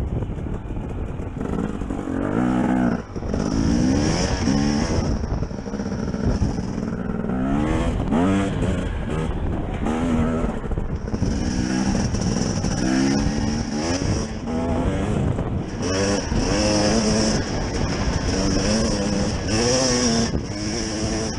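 2017 Husqvarna TE250 two-stroke enduro motorcycle engine under way, its revs rising and dropping back over and over as the throttle is worked, heard from the rider's helmet.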